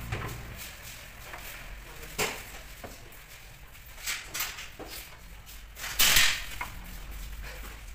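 Metal knocks and clicks of a steel bar gate on a motorbike lift shaft being swung shut and latched, with the loudest clack about six seconds in.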